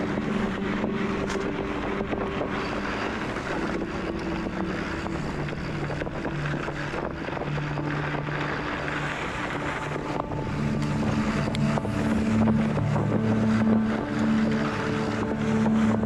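Mountain bike rolling fast down a dirt singletrack: wind rushing over the camera microphone and tyres on the dirt, with a steady humming drone that shifts in pitch now and then and grows a little louder in the second half.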